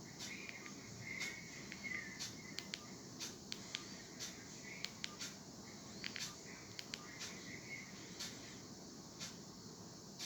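Olmio Pet A02 mobile phone playing a quiet nature-sound ringtone: faint, irregular insect-like chirps and clicks.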